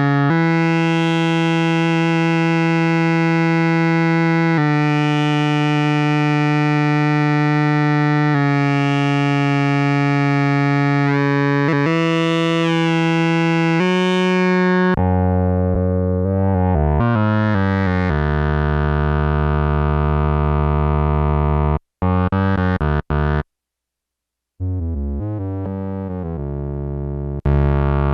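Yamaha SY-2 analog synthesizer, out of tune, playing about four long held notes, each with a bright swell at its start. About halfway through it moves to lower, shorter notes that change quickly, with two brief silent gaps near the end.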